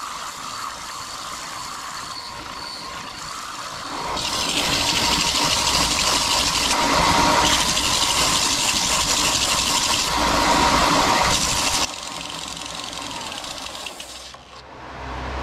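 Benchtop belt sander running with the base of a small maple cup held on the belt. A steady motor sound with a faint whine for a few seconds, then from about four seconds in a much louder rasping of wood on the abrasive belt for about eight seconds, which stops suddenly.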